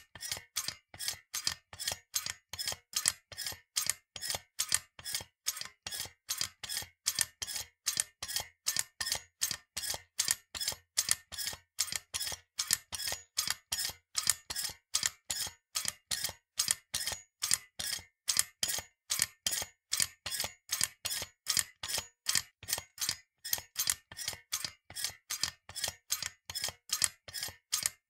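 Metal spring trigger snapping over and over: sharp, high metallic clicks repeating evenly about three times a second.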